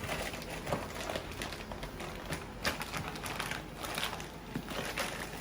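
Plastic wrapping on a vacuum-sealed, roll-packed mattress crinkling and rustling in irregular clicks and scrapes as it is opened.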